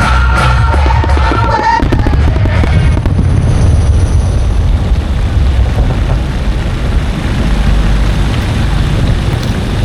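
Fireworks shells bursting in a dense, continuous low rumble of booms and crackles. Accompanying music is heard in the first two seconds and then drops away.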